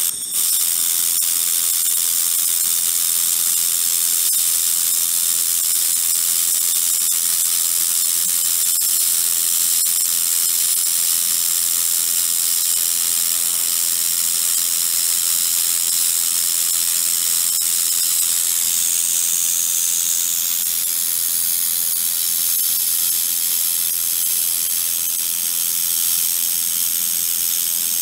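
1.5 kW handheld laser welder running continuously along a seam in steel sheet: a steady high hiss from the torch and weld, with a brief dip just after the start.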